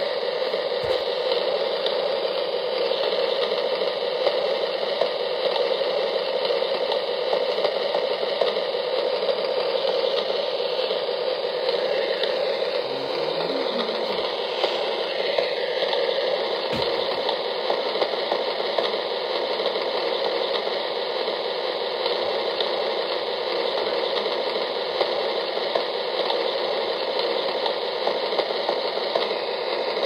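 Steady rain: an even hiss with small irregular ticks of falling drops.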